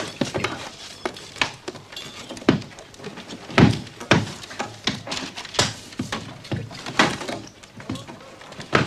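A room being searched: irregular wooden knocks, thumps and bangs as things are moved about and opened. The loudest comes about three and a half seconds in.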